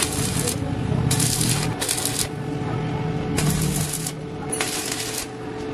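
Stick (arc) welding on a steel square-tube frame: the arc crackles and sizzles in spells of about half a second, starting and stopping about five times, over a steady hum.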